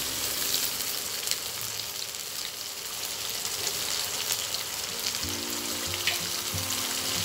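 Freshly added wet ground spice paste and sliced onions sizzling in hot oil in a wok: a steady frying hiss with scattered small crackles and pops.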